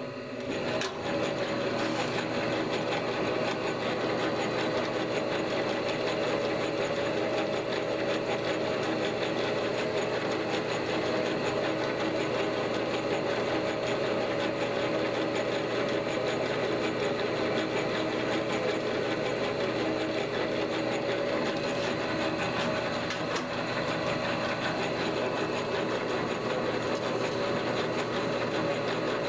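Enco 9x20 benchtop metal lathe coming up to speed at the start, then running steadily with an even motor and gear whine while it takes the last light finishing pass on a small quarter-inch shank.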